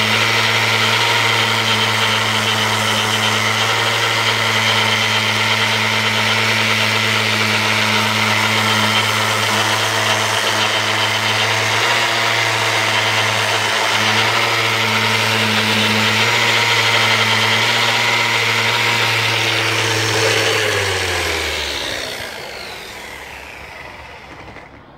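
Festool Rotex sander running steadily with its pad pressed on a wooden post, sanding paint off the bare wood. About 20 seconds in it is switched off and winds down, its hum falling in pitch and fading.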